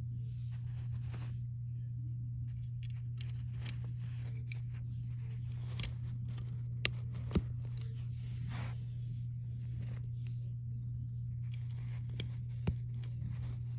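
Small plastic Lego pieces being handled and pressed together: faint rustling and scraping with three sharp snaps, two about seven seconds in and one near the end, over a steady low hum.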